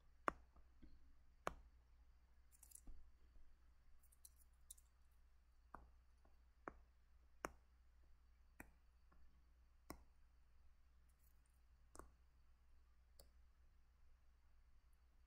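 Near silence with a steady low hum, broken by about ten faint, sharp clicks at irregular intervals. The clicks come from the computer input device used for drawing.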